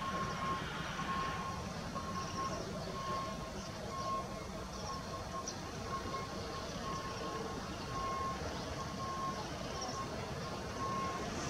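An electronic warning signal beeping on one high note at an even rate, just under two beeps a second, over a steady low rumble from the approaching Pt47 steam locomotive and its train.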